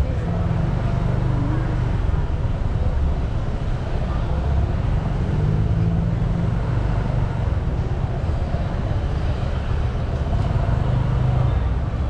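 Road traffic noise: a steady low rumble of vehicle engines and tyres.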